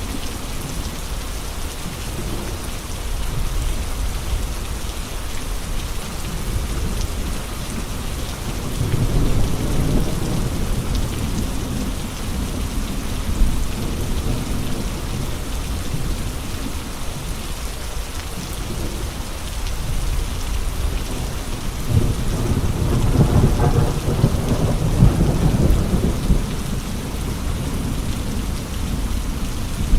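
Steady heavy rain with gusting wind, the wind swelling into deep, low surges twice: a short one about a third of the way in and a longer, stronger one past the middle.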